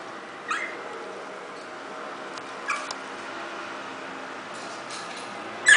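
Pomeranian puppy whining for food in three short, high-pitched cries: two brief ones, then a much louder one near the end.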